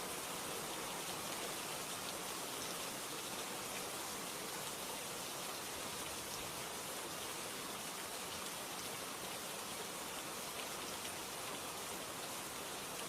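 Steady rainfall: a dense, even hiss of raindrops with faint individual drop ticks.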